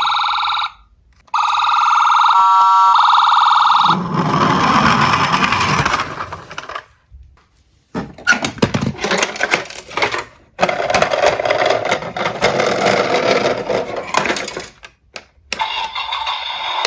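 Toy emergency vehicle's electronic siren sounding a steady tone, cut off briefly about a second in and stopping after about four seconds. Irregular clattering and rattling noise from the toys follows, and a siren tone starts up again near the end.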